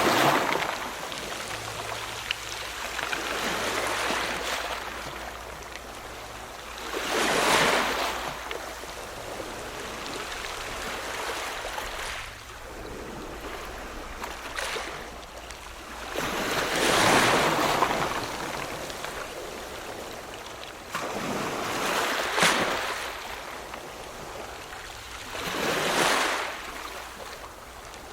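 Ocean waves breaking and washing in, rising in a surge every several seconds (five swells) over a steady hiss of water between them.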